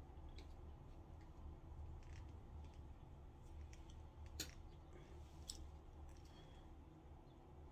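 Near silence: room tone with a steady low hum and a few faint ticks and rustles, the sharpest about four and a half seconds in and again a second later.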